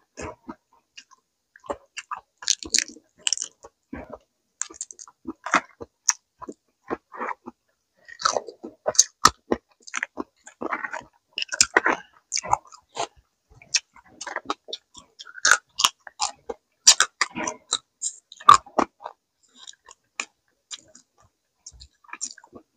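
Eating sounds: chewing and irregular sharp crunches and wet clicks as raw crab and Thai salad are bitten and chewed. They come thickest through the middle and thin out near the end.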